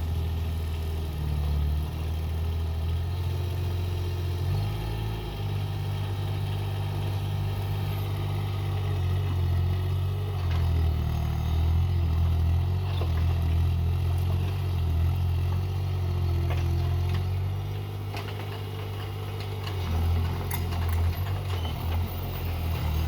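Excavator engine running and working, its note rising and falling with load, with a few sharp knocks in the second half.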